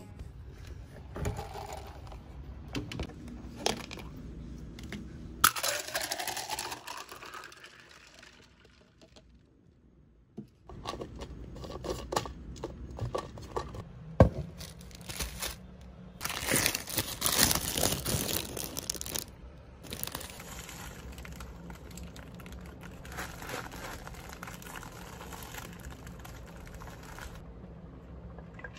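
Handling sounds: packaging crinkling and rustling, with scattered clicks and knocks. The longest, loudest stretch of rustling comes about two-thirds of the way through.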